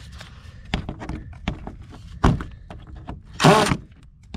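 A few knocks and a thunk of tool and hand contact against the wooden blocks and underbody, then a brief burst from a cordless driver about three and a half seconds in, as it is brought to a side-skirt screw.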